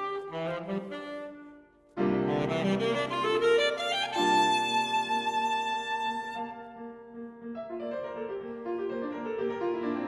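Alto saxophone and grand piano playing a classical sonata. After a brief break about two seconds in, both come back in loudly, the saxophone holding a long note, before the music settles into a quieter passage.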